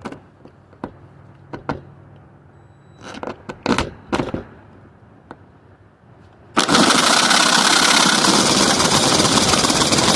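A few clunks of handling, then about six and a half seconds in, a bladed electric power saw starts cutting through the van's sheet-metal body. It runs loud and steady.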